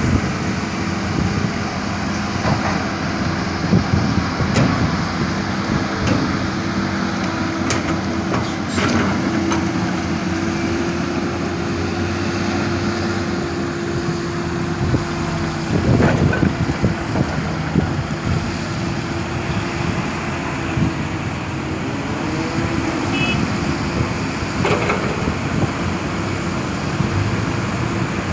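Caterpillar 320D excavator's six-cylinder diesel engine running steadily under hydraulic load as it digs and loads soil into a dump truck, its pitch shifting now and then. A few sharp knocks stand out, the loudest about halfway through.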